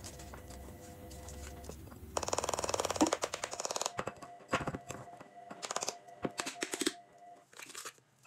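Chocolate drink powder shaken out of a plastic tub into a glass jar: a fast, dense rattle and patter of granules, strongest from about two to four seconds in, then in shorter bursts.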